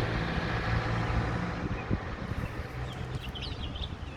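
A motor vehicle's engine hums low and steady, then fades away over the first couple of seconds. A few short bird chirps follow in the second half.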